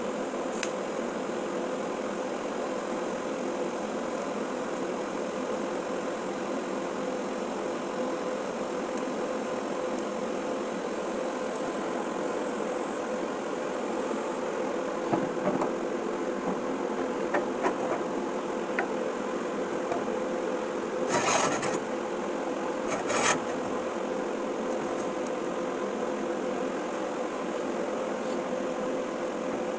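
TIG welding arc buzzing steadily, with two brief sharp hissing bursts about two-thirds of the way in.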